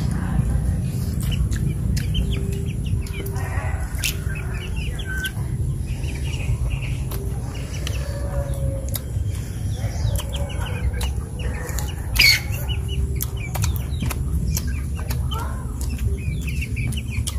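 Chickens clucking, with scattered clicks of snail shells being handled and picked at while eating, over a steady low rumble; one louder sharp sound about twelve seconds in.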